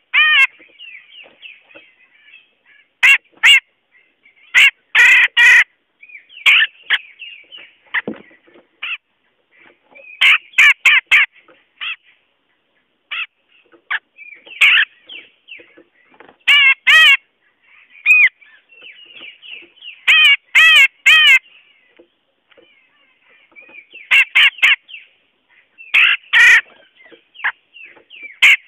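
Cucak jenggot bulbul calling, a trappers' lure recording: loud, harsh calls in quick bursts of two to four notes every one to three seconds, with softer chattering notes between.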